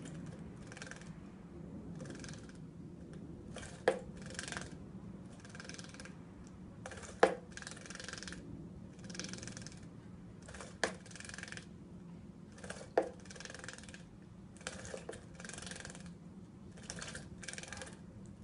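A Java sparrow bathing in a small plastic bath: repeated short bursts of splashing and wing-fluttering in the water, with a few sharp clicks on the plastic in between.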